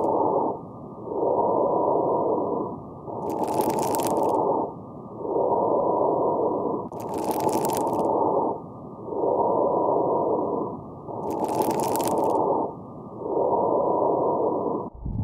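Abnormal lung sounds played from a stethoscope recording: breaths come in and out about every two seconds, and on every other breath there is a short, brighter burst.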